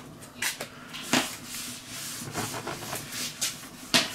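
Paper towel rubbed in strokes over a hot steel fire plate, spreading sprayed oil across it before cooking: a run of irregular scrubbing swishes, the loudest near the end.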